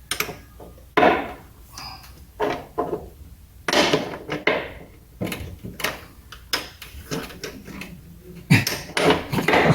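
Irregular knocks, clatter and scraping of hand tools and parts being handled during a brake job, with a busier burst near the end.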